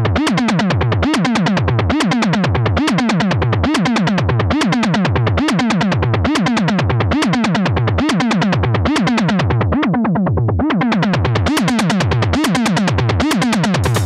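Eurorack modular synthesizer patch built around the Neuzeit WARP wavetable and additive oscillator, playing a looping electronic pattern. A low tone drops in pitch about twice a second under a fast ticking high layer, which thins out briefly about two-thirds of the way through.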